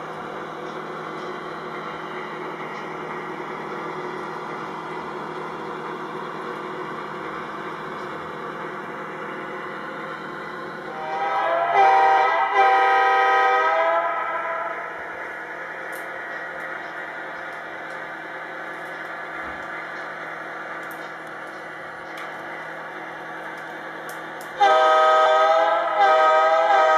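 Lionel O-gauge model diesel locomotive running with its onboard engine sound steady as the train rolls along the track. Its horn sounds in a few blasts about 11 seconds in and again near the end.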